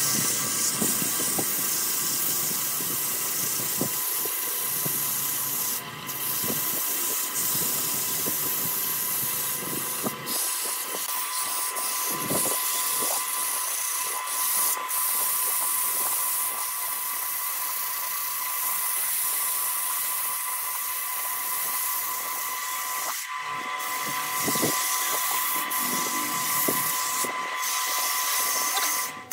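Wood lathe running with a steady high whine while sandpaper is pressed against the spinning wooden vase, giving a continuous hiss of sanding.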